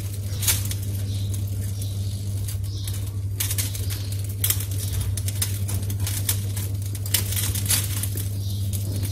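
Metal spoon scraping and packing minced pork into a split bitter melon, with irregular short scrapes and clicks against the melon and bowl. A steady low hum runs underneath.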